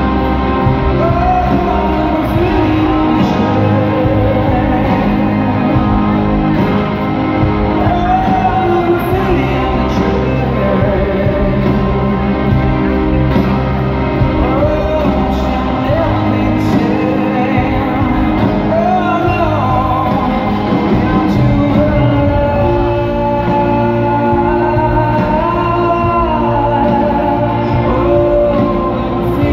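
Live rock band playing a song: a lead singer over electric guitars, bass and drums, heard from among the crowd in a large hall.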